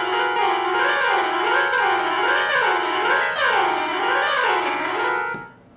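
Piano notes from the Perfect Piano app on a Google Nexus 6's stereo speakers at full volume, swept up and down the keyboard in repeated waves. The notes stop shortly before the end. This is the comparison phone, played as a reference against Pixel speakers that crackle with static.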